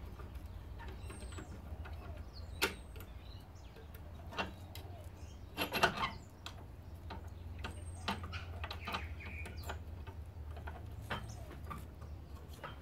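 Garden secateurs snipping rose stems: a handful of sharp clicks a second or more apart, with a quick cluster about six seconds in. Small birds chirp faintly a few times in the background.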